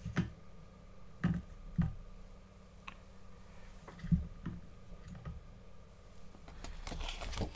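Handling noise as a cardboard collector's album is shifted about on a desk: a string of light knocks and clicks, then a short rustle near the end, over a low steady hum.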